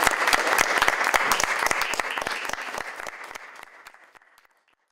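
Audience applauding, dense clapping that dies away over the last two seconds.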